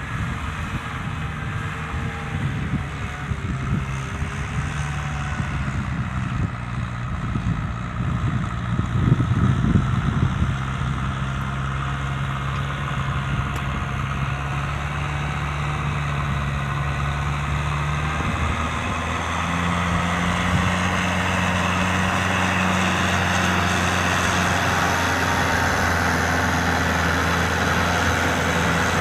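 Kubota M6040 SU tractor's diesel engine running steadily, with a brief louder stretch about a third of the way in and a change in engine note about two-thirds of the way through.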